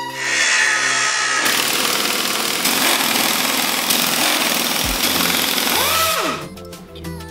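Pneumatic impact wrench running hard on a bolt of an axle air spring. It stops about six seconds in with a short falling whine as it winds down.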